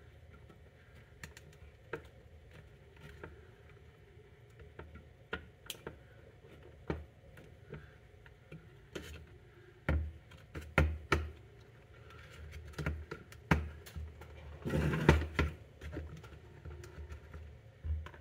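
Small clicks and taps of plastic and metal parts being handled and fitted inside an opened Portacount 8020A respirator fit tester. They are sparse at first and busier in the second half, with a brief scraping burst about fifteen seconds in.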